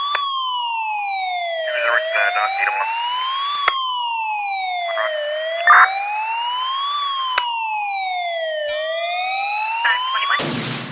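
Siren wailing, its pitch rising and falling slowly, about three and a half seconds per rise and fall. Near the end a second, faster siren tone joins, and a short rushing noise cuts in as it ends.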